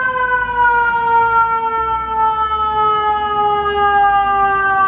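FDNY fire engine's siren: one long wail, slowly falling in pitch.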